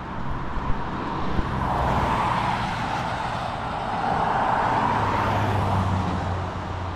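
Road traffic passing: tyre noise swells twice, about two seconds in and again around five seconds, and the second pass carries a low engine hum.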